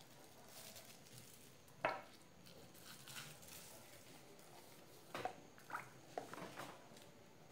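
Quiet handling of a thin plastic ice-pop bag and a plastic funnel, with one sharp plastic click about two seconds in. Near the end comes a short run of small knocks and splashes as a milk mixture is poured from a plastic jug into the funnel.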